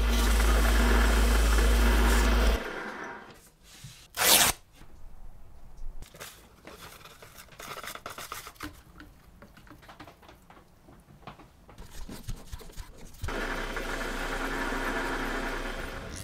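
Paulimot PM190-V benchtop lathe running, spinning a wooden ball on a threaded rod while sandpaper is held to it: a steady motor hum with sanding hiss that stops about two and a half seconds in. A short loud burst follows, then quiet crinkling and handling as powdered wood stain is poured into a cup of liquid, and near the end the lathe runs again, more quietly.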